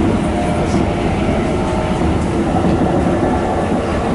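Keikyu New 1000 series electric train running along the line, heard from inside the cab: a steady rumble of wheels on rail and running gear, with a faint brief whine now and then.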